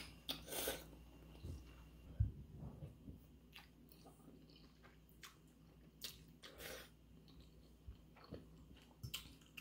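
A person slurping and chewing instant ramen noodles eaten from a fork, in short scattered mouthfuls, with a single dull knock about two seconds in.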